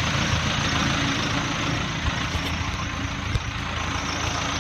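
Case backhoe's diesel engine idling steadily while still cold, just after a hard cold start.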